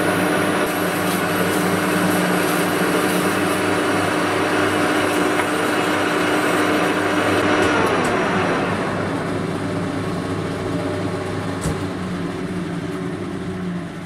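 Old metal-turning lathe running with a steady hum and gear whine while a steel V-groove wheel turns in its chuck. About eight seconds in, the lathe is switched off and the whine slides down in pitch as the spindle coasts to a stop.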